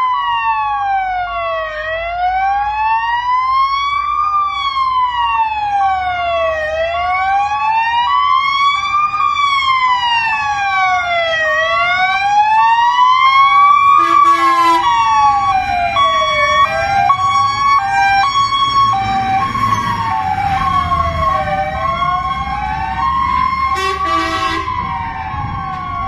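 Fire engine sirens on an emergency run: one wailing slowly up and down, a full rise and fall about every five seconds, over another siren alternating between two tones, with the trucks' diesel engines rumbling as they pass. Two brief horn blasts, about halfway through and near the end.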